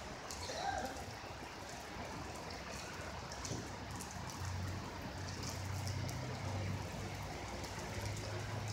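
Rainwater runoff flowing and trickling in a steady rush after a heavy downpour. A low steady hum joins about halfway through.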